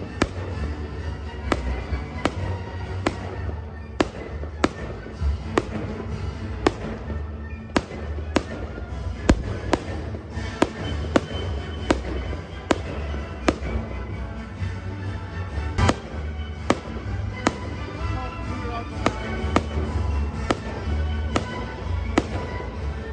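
Fireworks going off: a steady run of sharp bangs, about one or two a second, with music playing underneath.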